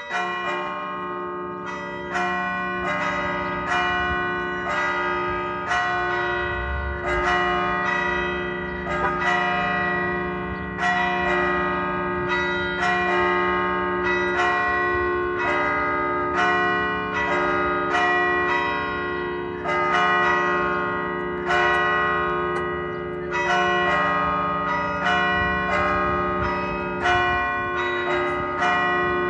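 Church bells pealing: they start suddenly, then strike about twice a second in a repeating pattern, each stroke ringing on under the next so the tones overlap.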